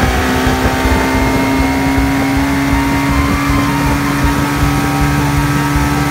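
Mercury 125 two-stroke outboard motor running at high speed under way, a steady engine note that rises slightly in pitch, over the rush of water and spray from the boat's wake.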